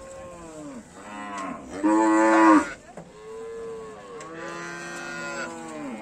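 Cattle mooing in several long, drawn-out calls that fall away at the end, the loudest about two seconds in.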